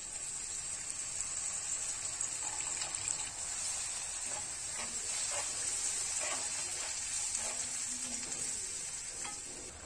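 Tamarind water pouring into a hot pan of fried onion-tomato masala with a steady sizzle, then a metal ladle stirring and scraping it through the masala.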